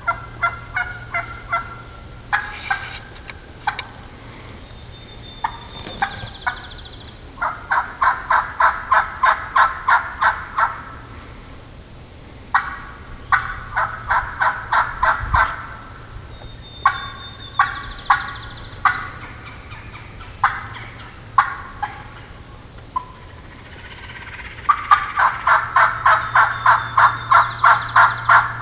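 Wild turkey hen cutting and yelping, the calling of an excited hen: sharp, irregular single clucks broken up by three long, even runs of loud yelps at about four notes a second, the last run loudest near the end.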